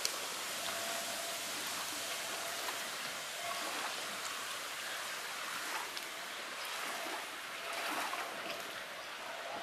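Steady rushing of wind over choppy lake water, with small waves splashing now and then.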